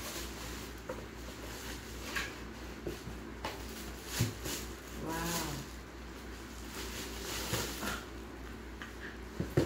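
Cardboard box being handled and pulled off a glass bottle wrapped in a plastic bag, with scattered light knocks, taps and rustling.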